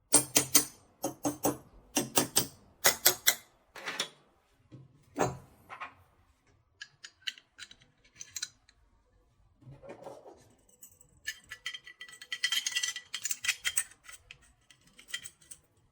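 Sharp metallic clicks and clacks of a full-metal Colt 1911-style gel blaster's parts being handled and fitted together. The clicks come in quick clusters at first, thin out, then bunch up again with some ringing near the end.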